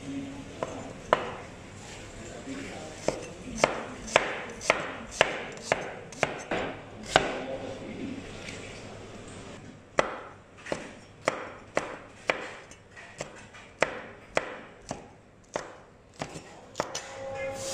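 A cleaver chopping onion and then red chillies on a wooden chopping board: sharp knocks of the blade striking the board, about two a second, with a short pause about halfway through.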